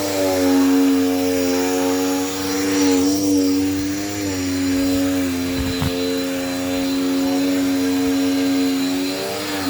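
Brand-new Dirt Devil Power Max vacuum cleaner running, a steady motor whine whose pitch sags briefly a few times. The motor is still breaking in, and the owner says it has been quieting down the longer it runs and that the noise is not uncommon.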